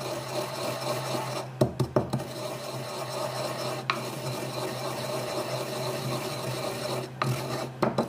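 Wooden pestle grinding Marie biscuits to fine crumbs in a wooden mortar: a steady, rasping grind, with a few knocks of the pestle about two seconds in and again near the end.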